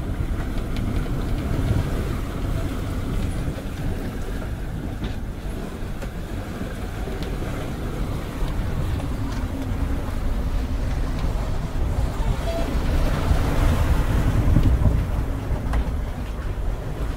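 Wind and water noise aboard a sailboat under sail in about 20 knots of apparent wind: a steady low rumble of wind on the microphone mixed with the rush of water along the hull, swelling louder about two-thirds of the way through.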